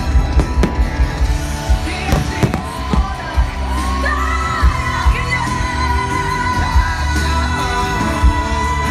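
Fireworks display: aerial shells bursting in an irregular string of sharp bangs, over loud music with a singing voice.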